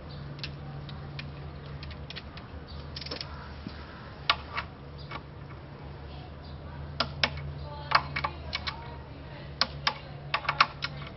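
Sharp, irregular metallic clicks of a ratchet or torque wrench and tool handling as the front brake bolts are tightened down, some clicks coming in quick clusters. A steady low hum runs underneath.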